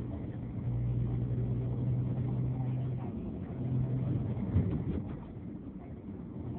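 Engine hum and road noise of a moving vehicle, heard from inside it, steady with a brief dip a little after three seconds. A single sharp knock about four and a half seconds in is the loudest moment.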